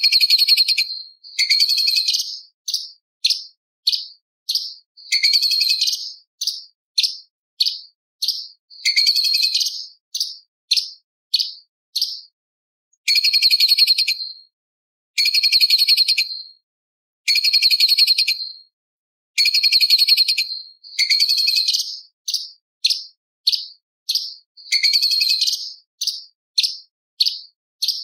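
Orange-bellied leafbird (cucak cungkok) singing: repeated high, scratchy bursts of rapid chatter about a second long, each followed by a few short separate notes, the pattern coming again every two seconds or so.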